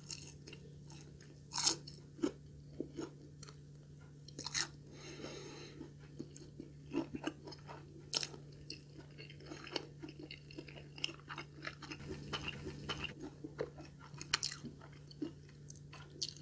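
Close-miked chewing of crispy breaded deep-fried katsu, with irregular crunches and wet mouth sounds. A faint steady low hum sits underneath.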